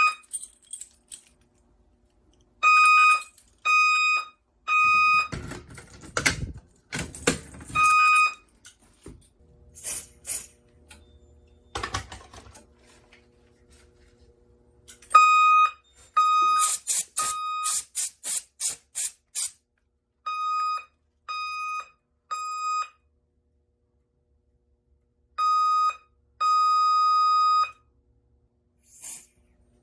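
Fire alarm voice-evacuation speaker sounding the code 3 (temporal-three) evacuation tone: a steady beep in groups of three short pulses, with long silences between the groups. Clatter and clicks fall in the gaps.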